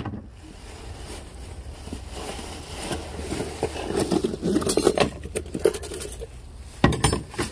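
A plastic bag and cardboard rustling as they are handled, then stainless-steel flatware clinking and rattling in a cardboard box, with a sharp, louder clatter near the end.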